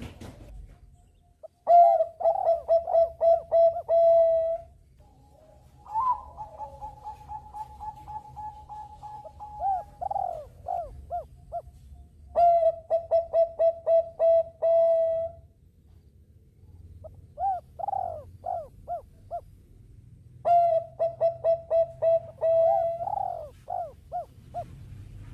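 Zebra doves of the Thai-bred perkutut bangkok type cooing. They sing about five bouts of quick staccato coo notes with pauses between them, and one bout opens with a long held note.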